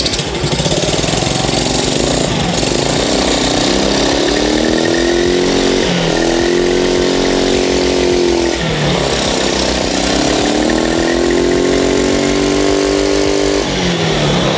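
Honda Activa scooter engine, freshly started and running without its air filter, with the fuel mixture not yet tuned. It idles at first, then is revved three times, each time rising, holding for a couple of seconds and dropping back to idle.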